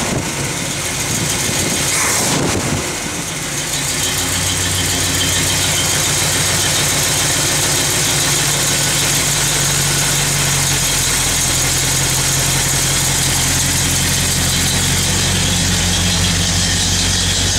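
1965 Ford F100's 352 FE V8 running with its ignition timing not yet set. Its pitch rises and falls as the carburettor throttle is worked in the first few seconds, then it settles into a steady fast idle. It is a little bit loud, echoing off the porch it is parked on.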